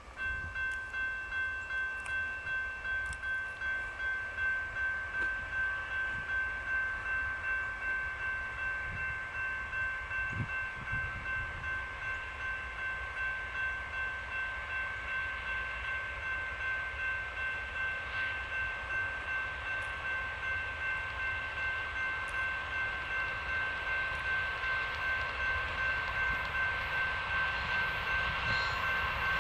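Railroad grade-crossing warning bell starting up suddenly and ringing steadily, about two strikes a second, warning of an approaching train; it grows slowly louder toward the end.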